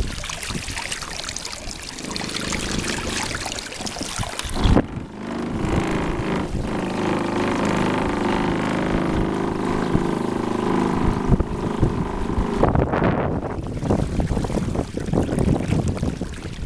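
Wind buffeting the microphone and water washing and slapping against a sailing canoe, with a sharp knock about five seconds in. A steady low hum runs under it until about twelve seconds in.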